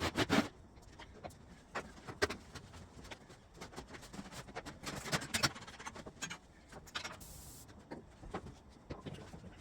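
Scattered clicks and knocks of tools and engine parts being handled, with a short hiss about seven seconds in.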